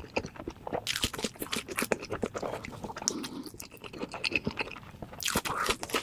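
Close-up eating sounds: a person biting and chewing crunchy food, with irregular wet mouth clicks and crackles. There are louder crunchy bites about one second in and again near the end.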